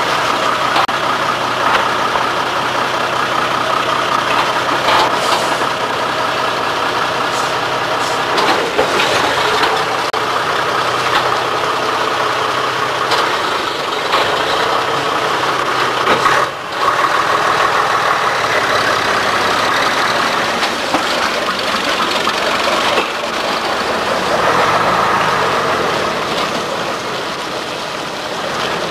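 Diesel engine of a Jelcz fire tanker truck running steadily as the truck moves off slowly. The sound fades a little near the end as it drives away, smoking from the exhaust.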